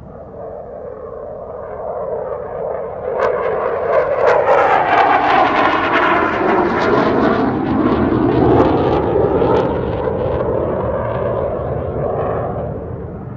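Saab JAS 39 Gripen fighter's single Volvo RM12 jet engine in a display flypast: a rushing roar that builds over the first few seconds, crackles at its loudest, sweeps up and down in pitch, then slowly fades.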